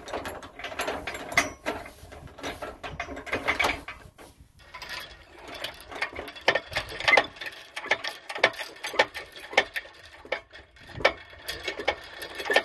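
Metal clicking and rattling on a homemade crane as it is worked: scattered clicks at first, then a quick, uneven run of clicks from about five seconds in.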